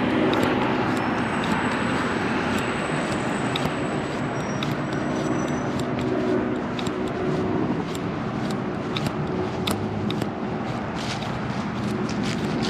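Downtown street traffic: passing motor vehicles making a steady rushing noise over a low engine hum, with a run of short sharp ticks through the second half.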